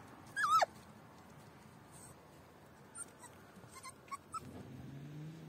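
A dog gives one short, wavering whine that falls in pitch, about half a second in. A few faint clicks follow later.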